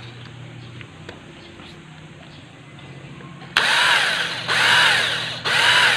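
Handheld electric drill with a 1/8-inch bit starting about three and a half seconds in and boring into steel. It runs at slow speed, its whine rising and falling in pitch about once a second; the bit is kept oiled, which is the right way to drill steel without dulling it.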